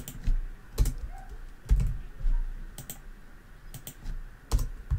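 Computer keyboard keys pressed in a handful of separate, irregularly spaced taps, some with a soft low thump under the click.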